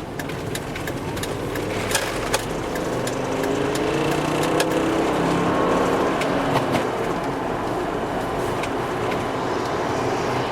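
2001 Volvo V70 T5's turbocharged five-cylinder engine running on the road. It pulls with a rising note for a few seconds, then settles to a steady cruise. Sharp clicks sound over it, mostly in the first few seconds. The engine has a misfire, blamed on failing ignition coils.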